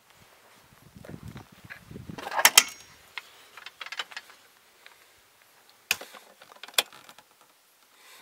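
Handling and movement noises in a small motorhome: rustling and creaking, a loud scraping crackle about two and a half seconds in, and two sharp clicks near the end.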